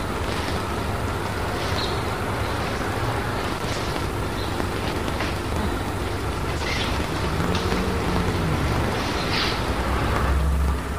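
A steady low rumble with scattered brief rustles and soft slaps as an aikido partner is thrown and falls on the mat. The rumble swells near the end.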